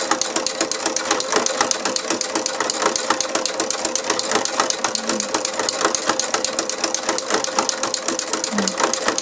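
Brother sewing machine with a ruffler foot attached, running steadily while stitching and gathering fabric: a rapid, even mechanical ticking over a steady motor hum.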